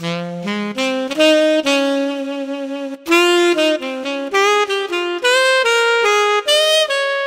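Sampled saxophone voice of a Korg Pa5X arranger keyboard, played as a melody of single notes on the keys. It starts suddenly with a quick rising run of notes, then moves into a short melodic phrase.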